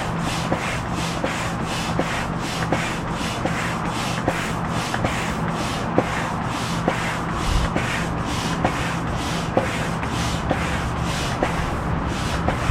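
Air pump inflating a chamber of an Intex Excursion 5 inflatable raft, a steady rush of air pulsing about three times a second, topping it up to the pressure gauge's mark.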